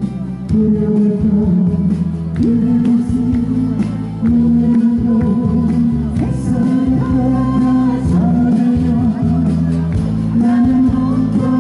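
Live amplified singing of a Korean folk-pop ballad with long held notes, accompanied by electric keyboard and acoustic guitar.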